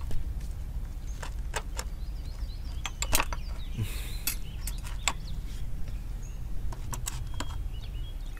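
Porcelain teapot and cups clinking and knocking on a tray as they are handled and set out: a string of light, separate clinks over a steady low background rumble.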